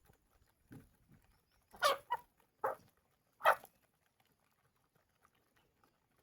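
A few short animal calls, four in the first four seconds, the loudest about two and three and a half seconds in.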